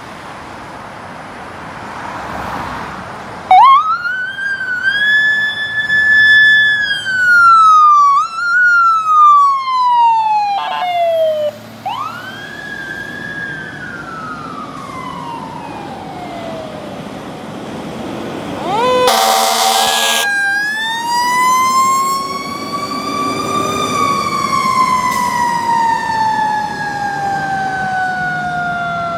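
Fire truck siren wailing, starting a few seconds in and rising and falling in pitch several times as the apparatus pulls out. About two-thirds of the way through there is a short, loud air horn blast, followed by one long slow wail that rises and then falls away.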